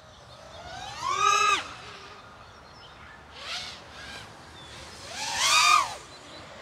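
FPV racing drone's brushless motors whining as the throttle is punched: a sharp rising whine about a second in, a short one near the middle, and another that rises and then falls near the end.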